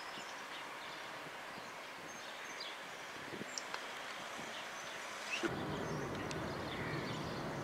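Outdoor town ambience: a steady distant hiss with a few faint, short bird chirps. About five seconds in, a louder low rushing noise sets in and keeps going.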